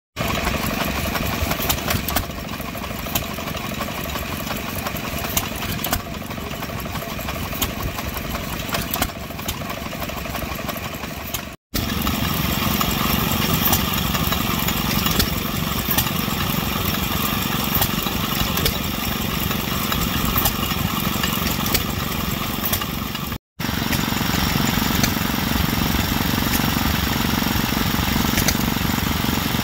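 Vintage stationary engines running, one after another in three takes, each ending in a sudden cut. First a small flywheel engine, then a 1924 2 hp Fairbanks Morse 'Z' single-cylinder engine, then a small green engine.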